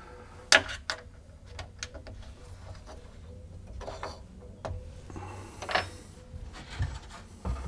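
Handling of a cut poplar workpiece: a sharp knock about half a second in, scattered light clicks, a brief scraping rub near six seconds, and a couple of dull thumps near the end.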